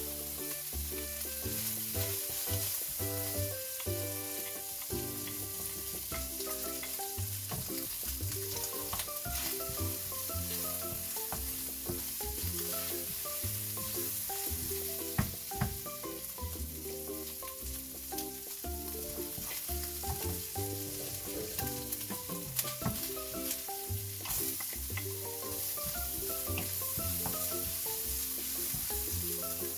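Diced bacon sizzling in a nonstick frying pan while a wooden spoon stirs and scrapes it, with a few sharper knocks of the spoon on the pan. Background music with a melody plays throughout.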